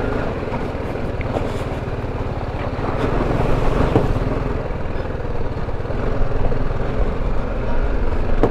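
BMW G310 GS's single-cylinder engine running steadily as the motorcycle rides over a loose, rocky track, a little louder in the second half. A short knock about four seconds in.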